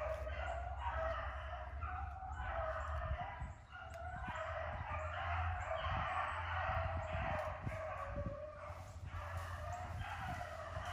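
A pack of beagles baying continuously on a rabbit chase, many hound voices overlapping in a steady chorus.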